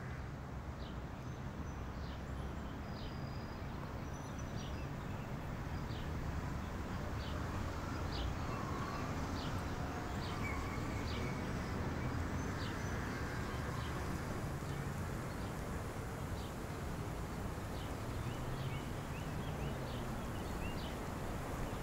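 Steady ambient background noise with short, light, high clicks about once a second, and a few faint brief tones in the middle.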